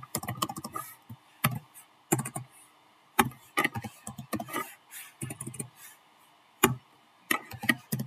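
Computer keyboard being typed on: irregular runs of sharp key clicks with short pauses between words.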